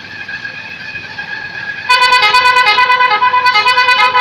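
Multi-tone 'telolet' air horn bursting loudly into a rapid, stepping melody about two seconds in. Before it, a fainter steady held tone sounds.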